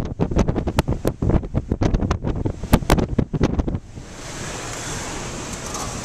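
Strong wind buffeting the camcorder microphone in rough, irregular gusts. About four seconds in it gives way abruptly to a steady hiss of heavy storm surf and wind.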